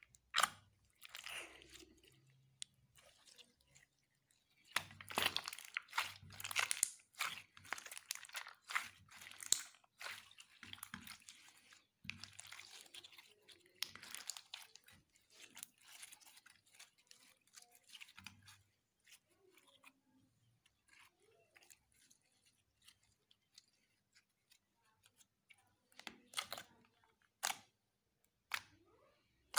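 Hands mixing and kneading slime, giving sticky crackling clicks and small pops in quick clusters. They are busiest from about five to fifteen seconds in and sparser later, with a few sharper clicks near the end.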